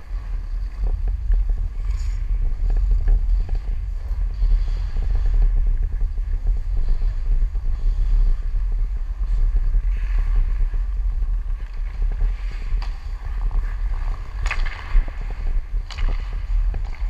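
Low wind rumble on a skater-worn camera's microphone while skating, with ice skate blades scraping and cutting the ice and scattered stick and puck clicks. A louder scrape comes about two and a half seconds before the end.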